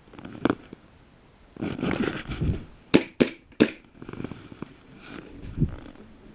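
Three sharp airsoft gun shots in quick succession about three seconds in. Around them, low thumps and rubbing come from movement against the chest-mounted GoPro.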